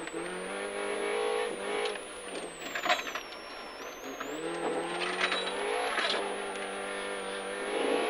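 MINI rally car's engine heard from inside the cabin, held at steady high revs, dropping in pitch about two seconds in as the driver lifts off, then climbing again from about four seconds in as it accelerates out.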